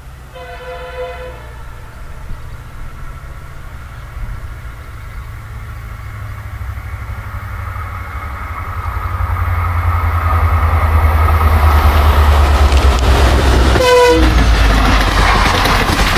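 EMD WDP4 diesel locomotive's two-stroke 16-cylinder engine approaching, with a chime horn blast about a second and a half long at the start. The low engine rumble grows steadily louder. Near the end a second short horn sounds with its pitch dropping as the locomotive passes, followed by the rush and clatter of the train's wheels.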